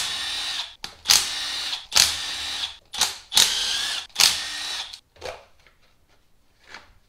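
A handheld power tool spins in short bursts, about five runs of under a second each, backing out the 8 mm bolts of the engine's PCV cover.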